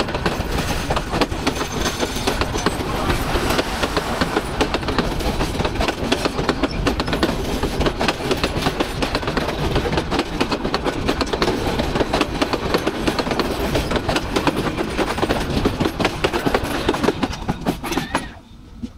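Dolonchapa Express passenger coaches rolling past at close range, wheels clattering over the rail joints. The noise drops away sharply near the end as the last coach passes.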